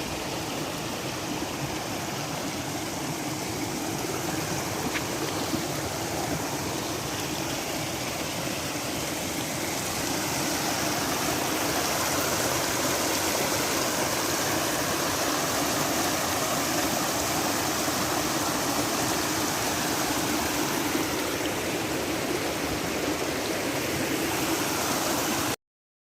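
Running water rushing steadily, like a stream; it cuts off suddenly near the end.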